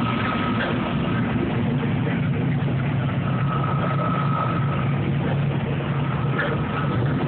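Engines of classic cars driving slowly past, a steady low engine hum.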